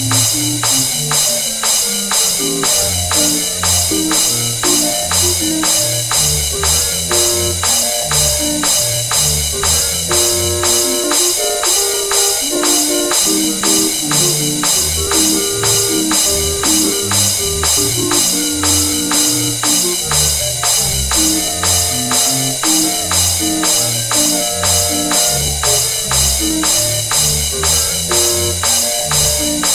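Barrel-organ tune over a fast, even beat of crisp percussion strikes.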